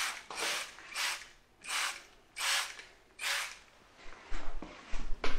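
Trigger spray bottle of ceramic coating pumped about six times in quick succession, each squeeze a short hiss. Near the end come a few sharp knocks and rubbing sounds.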